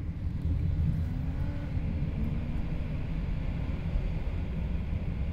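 Jeep Wrangler JL driving along a paved road, heard from inside the cab: a steady low rumble of engine and tyres, with the engine note wavering slightly.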